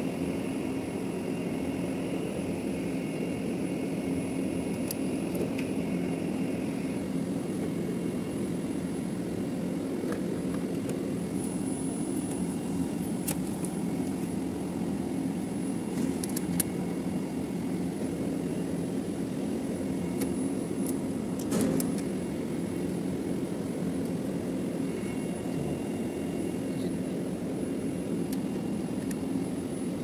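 Air-conditioning unit running with a steady mechanical hum, with a few faint clicks around the middle.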